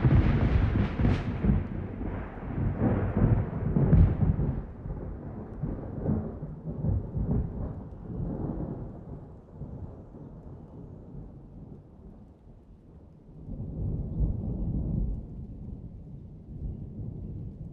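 Thunder: a sudden loud clap followed by rolling rumbles that fade over about ten seconds, with another rumble swelling about fourteen seconds in.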